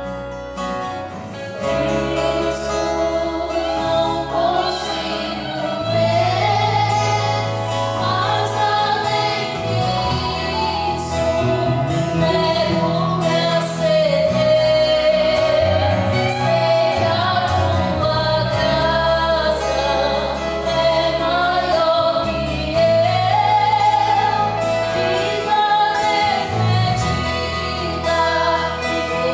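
A woman singing a worship song into a microphone, accompanying herself on a strummed acoustic guitar, over electric bass guitar notes.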